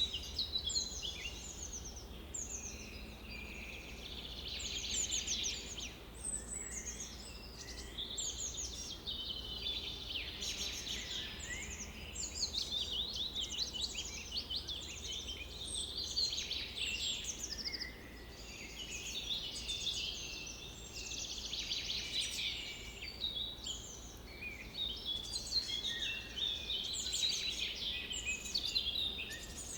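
Several birds singing at once: a dense, overlapping chorus of quick chirps and trills that rises and falls in waves, over a faint steady low rumble.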